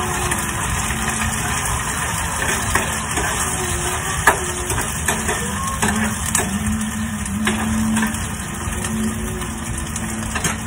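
Oil sizzling steadily in a frying pan on a gas burner as food is sautéed and stirred with a metal spoon. The spoon scrapes the pan and clinks against it several times, the loudest clink about four seconds in.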